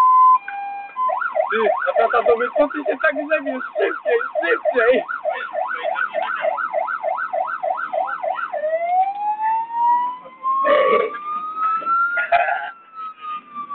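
Fire engine siren changing modes: a two-tone hi-lo at first, then a fast yelp sweeping up and down about twice a second, then about eight seconds in a slow wail that rises and then falls. Two short harsh bursts sound about eleven and twelve seconds in.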